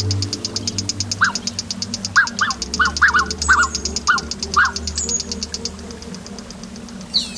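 Wetland soundscape made from field recordings: a fast, high pulsing trill that fades out near the end, scattered short chirping calls, and a steady low rumble underneath.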